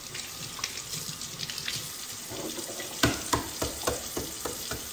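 Kitchen tap running in a steady stream into a sink while a boiled egg is peeled under it. In the second half comes a quick run of sharp clicks and knocks, about five a second.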